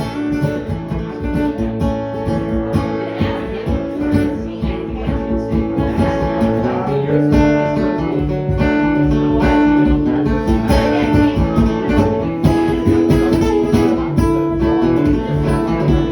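Acoustic guitar playing a strummed and picked instrumental break in a country/bluegrass song.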